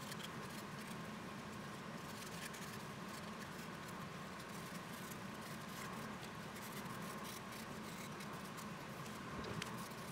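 Faint rustling and light taps of gloved hands handling small plywood pieces, over a steady low hum.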